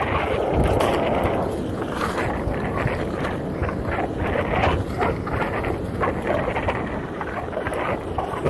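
Wind buffeting the microphone over the rumble of a Onewheel's tyre rolling fast along a bumpy dirt trail, with many short crunches and knocks from the ground.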